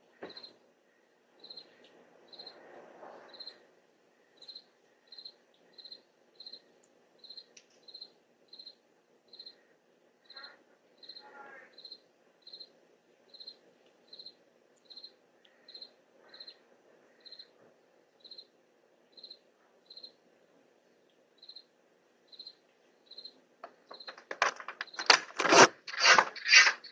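A cricket chirping faintly and steadily, short high chirps at an even pace of about three every two seconds.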